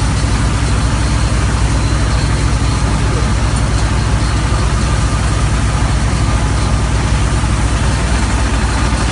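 HF120W water well drilling rig's engine running steadily while it drills, a loud, even low drone with a constant hiss above it.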